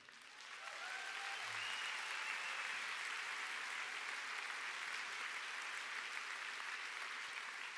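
Large audience applauding, building over the first second or two and then holding steady, with a brief cheer about a second in.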